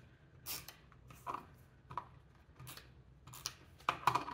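Tape runner laying adhesive on cardstock in short strokes, with paper being handled between them; a louder cluster of knocks near the end as the plastic tape runner is set down on the table.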